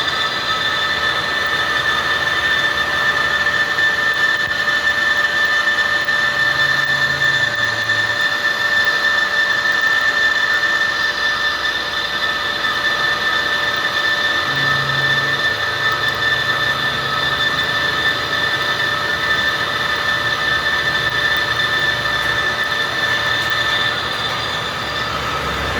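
Metal lathe running on steel, a steady machine sound with a high-pitched whine held on several fixed tones.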